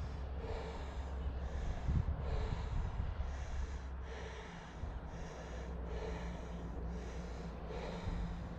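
A hiker breathing heavily into the microphone, about one breath a second in an even rhythm, over a steady low wind rumble.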